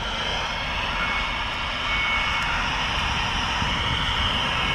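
Small handheld electric leaf blower running steadily, a high whine over a rush of air, blown into a smoldering brush pile to fan the fire.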